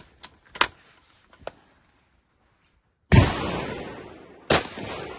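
Rifle shot from a Savage 110 Scout bolt-action firing 7.62x51 NATO: a loud, sharp report about three seconds in with a long decaying tail. It is followed about a second and a half later by a second, quieter sharp report, and there are a few faint clicks before the first shot.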